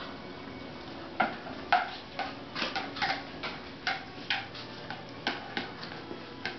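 A beagle's claws clicking and scrabbling on a hard tiled floor: irregular sharp ticks, about two a second, starting about a second in.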